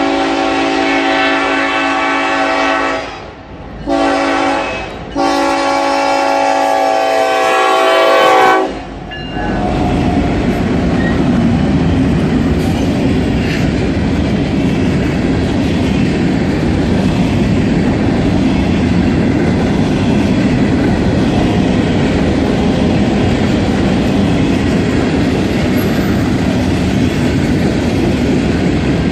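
Locomotive air horn sounding three blasts (long, short, long), then a train passing close by with a steady rumble and clickety-clack of wheels over the rail joints.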